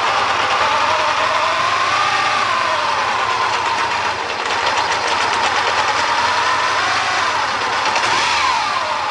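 1976 Laverda motorcycle engine running at a steady idle, its revs lifting and settling briefly about two seconds in and again near the end.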